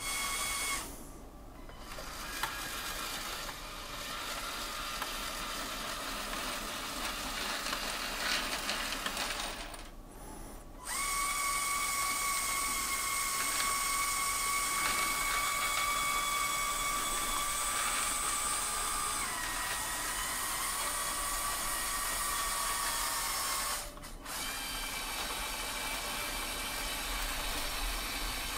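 Electric Control+ motors of a LEGO Technic Liebherr R9800 model excavator whining as they drive the boom and bucket into a pile of loose pins. The whine stops and restarts a few times, and its pitch drops slightly about two-thirds of the way through.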